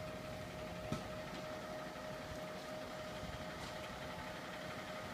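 Fire truck engine running steadily, with a steady whine over a low rumble and a single sharp click about a second in.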